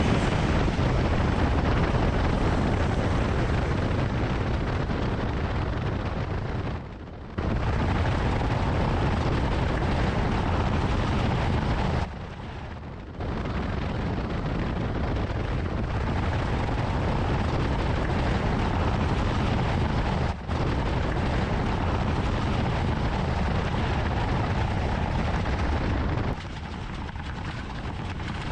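Camouflaged Ford Bronco prototype driving, heard as a loud, steady rumble of engine and road noise. It breaks off briefly twice, has one short gap later, and drops lower near the end.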